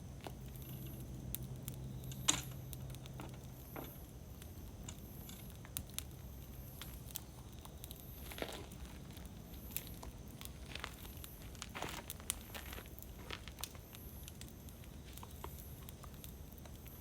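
Wood campfire burning and crackling, with irregular snaps and pops and one sharp pop a little over two seconds in.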